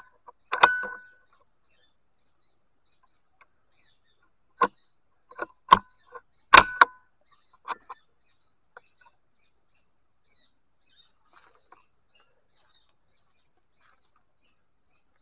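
Steady high chirping from a small animal, about three chirps a second, with a few sharp clicks in the first half, the loudest about six and a half seconds in.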